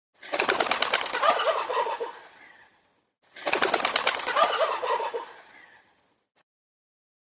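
Turkey gobbling twice: two rapid, rattling gobbles of about two and a half seconds each, a short pause between them.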